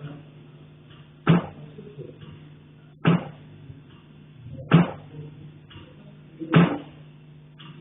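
Heating pipe being struck: four sharp metallic knocks, evenly spaced a little under two seconds apart, each ringing briefly. The uploader takes it for someone banging on the pipe from the attic.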